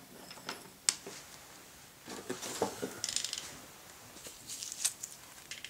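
Scattered light clicks and taps of wooden and plastic toy train cars being handled and set down on a hardwood floor, with a small cluster of knocks about two to three seconds in.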